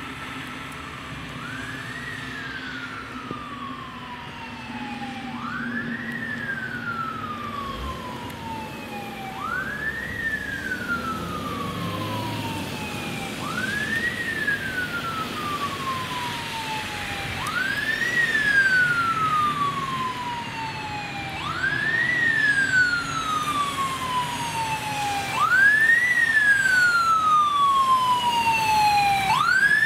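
Fire engine siren sounding a repeating cycle, about every four seconds, with a quick rise in pitch and then a slow fall. It grows steadily louder as the truck approaches.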